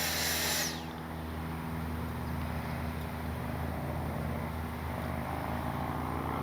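80mm electric ducted fan of an RC jet (12-blade fan on an inrunner motor) whining loudly, then dropping in pitch and falling away under a second in as the jet passes and climbs off. A fainter low, steady hum remains for the rest.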